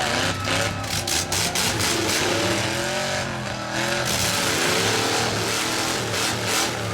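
Several demolition derby cars' engines revving up and down at once, their pitches rising and falling over each other, with scattered sharp bangs of cars colliding.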